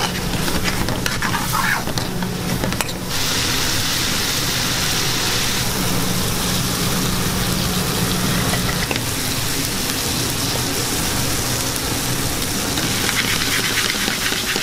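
Biryani sauce and rice sizzling in a hot metal pan on a gas burner, with a spatula scraping and tapping the pan during the first few seconds while it is stirred. A steady low hum runs underneath.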